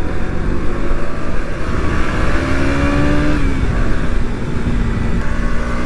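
KTM Duke motorcycle's single-cylinder engine running on the move, with wind rushing on the helmet microphone. The engine note climbs a little about two seconds in, eases back, then holds steady.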